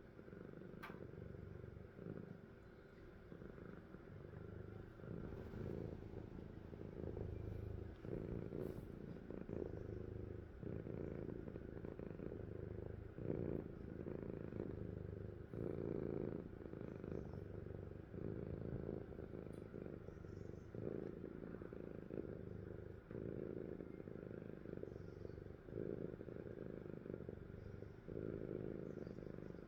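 Sleeping cat purring, a low rumble that swells and fades with each breath, about every second and a half.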